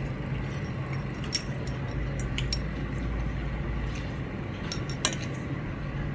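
A few light, scattered clinks against a plate during a meal eaten by hand, over a steady low hum.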